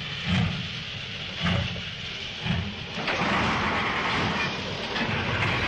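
Steam locomotive sound effect: slow, heavy chuffs about once a second, then a steady hiss of steam with a low rumble from about three seconds in.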